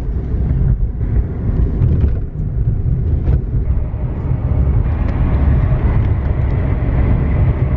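Road noise inside a moving car's cabin: a loud, steady low rumble.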